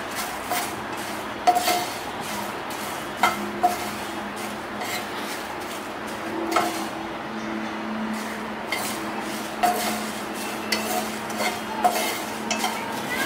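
Slotted wooden spatula stirring whole dried red chillies as they dry-roast in a hot nonstick frying pan: about a dozen irregular knocks and scrapes of wood on the pan, over a steady hiss.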